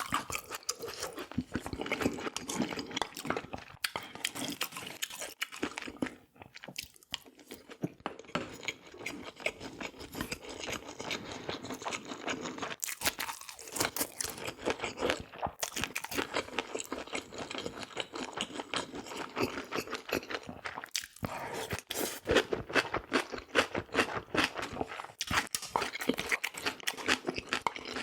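Close-miked eating: a person chewing and crunching food, with a steady run of small crackles and clicks.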